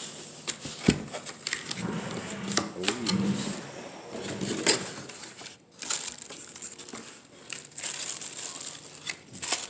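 Packaging crinkling and rustling with scattered clicks and knocks as a car speaker and its parts are unpacked from the box.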